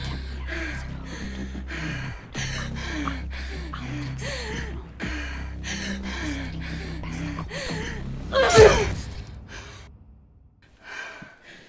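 A woman gasping and breathing hard in distress, with short whimpers between the breaths, then a loud anguished cry about eight and a half seconds in, after which her breathing drops away. A low steady drone runs underneath until the cry.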